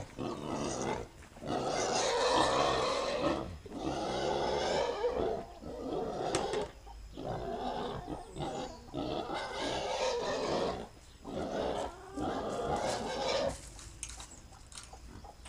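Donkey braying: a long run of loud hee-haw calls, each a second or two long, with brief breaks between them. The calls die down near the end.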